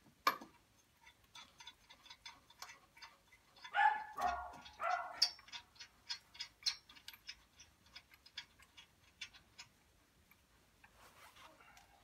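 Light, irregular clicking of hand tools on metal as a man works under a tractor, several clicks a second at times. A brief louder sound comes about four seconds in.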